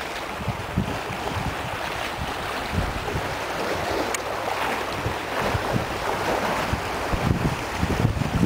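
Wind buffeting the microphone in irregular gusts over a steady rush of lake water moving past a boat.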